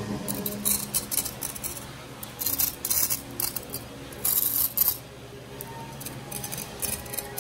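Knife cutting through the crisp, blistered skin of deep-fried pork belly (lechon kawali), crackling and crunching in repeated short bursts, the longest and loudest about four seconds in.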